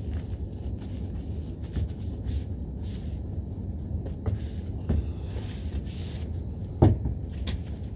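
Long-handled wash brush scrubbing the lower side and wheel of a car, with a few sharp knocks of the brush head against the car, the loudest about seven seconds in, over a steady low rumble.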